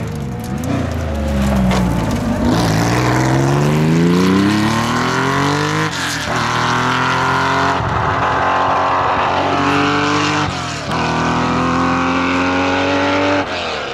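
Porsche 911 rally car's air-cooled flat-six under hard acceleration. The engine note dips briefly at first, then climbs steeply in each gear, with about four quick upshifts.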